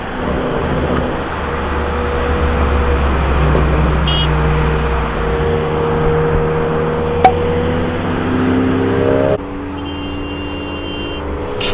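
Turbocharged Ford Focus ST engine and exhaust running under way, its note rising near the middle of the clip, with one sharp exhaust pop about seven seconds in, the loudest sound. About nine seconds in the sound drops suddenly to a quieter, steady engine note.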